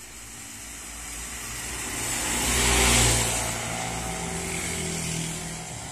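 Motor vehicles passing on a rain-wet road: tyres hiss through the water as a truck goes by close, rising to loudest about three seconds in, with a low engine drone that carries on as a minibus and motorcycle come along.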